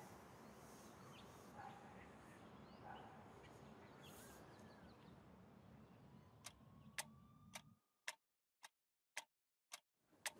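Faint room tone, then from about six and a half seconds in a sharp, regular ticking at about two ticks a second. Near the end the background drops away and only the ticks are left.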